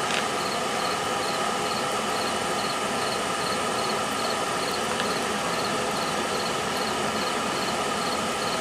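Steady rush of forced air from the forge's electric blower, with a constant motor hum, feeding a coal fire in a brake drum forge.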